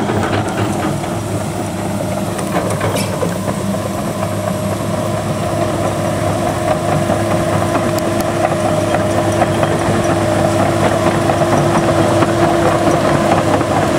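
Komatsu crawler excavator's diesel engine running steadily, with a steady whine over its rumble, growing gradually louder.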